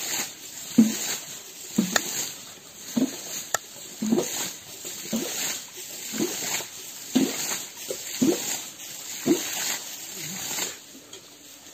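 Machete chopping on a flat stone, a short knock about once a second that stops shortly before the end.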